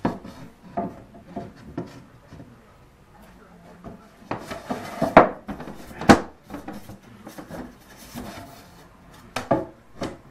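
Thin plywood back panel being worked into the frame of a walnut cabinet: wooden knocks and scraping as it is pushed and shifted into place, with two sharp knocks about five and six seconds in and another near the end.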